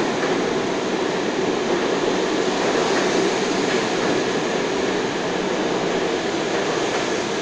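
Stainless-steel New York City subway train running past a station platform: a steady noise of wheels on rail and car motors.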